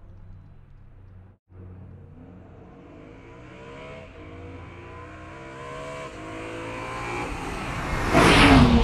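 BMW E90/E92 M3's 4.0-litre V8 heard through the M Performance exhaust: a low steady note, a brief gap about a second and a half in, then revs climbing slowly in pitch and loudness, loudest near the end.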